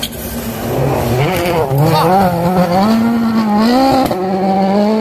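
Rally car engine approaching at speed, getting louder about a second in, its revs rising and falling repeatedly as the throttle is worked.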